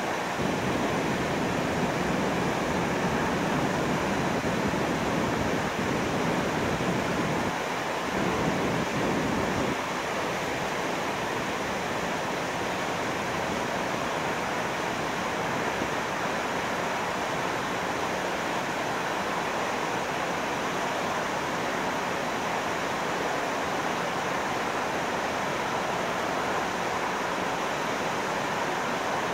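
River water pouring through sluice gates, a steady rushing noise. It is a little deeper and louder for the first ten seconds or so, then evens out.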